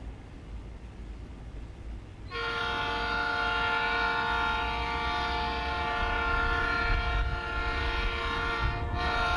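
Diesel locomotive's multi-chime air horn blowing one long chord of several notes for the grade crossing. It starts about two seconds in and is held, over the low rumble of the approaching train.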